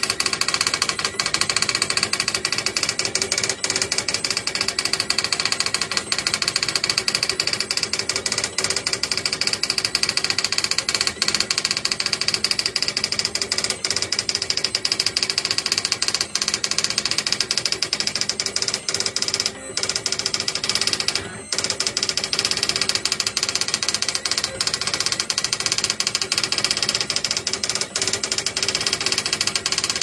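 Commodore DPS-1101 daisy wheel printer printing: a very loud, rapid, unbroken clatter as the print hammer strikes character after character. It breaks off for two brief moments about twenty seconds in.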